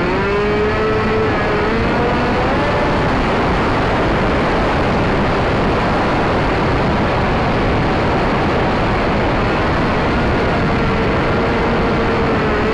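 Firebird Stratos RC plane's electric motor and propeller whining under heavy wind rush on the onboard camera's microphone. The whine wavers and rises over the first few seconds, drops out through the middle, and comes back near the end.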